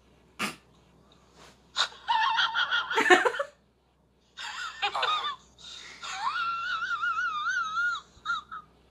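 A woman's high-pitched, wheezing laughter, stifled behind her hand. After a quiet start it comes in gasping bursts, then one long wavering squeal near the end.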